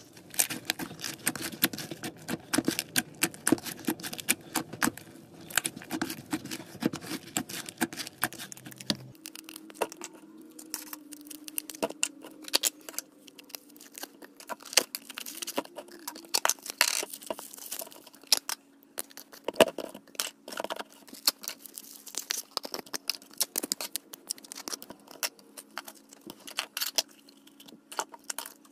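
Slime being squeezed and stretched by hand, making a dense run of sticky clicks and small pops. The background changes about a third of the way through, as if to another batch.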